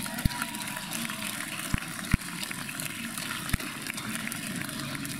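Steady room noise with four dull, low thumps at irregular gaps, the loudest a little after two seconds in.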